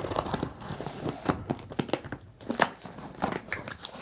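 Packaging being handled and torn open, with irregular crinkling, rustling and sharp clicks, as a boxed battery is unwrapped.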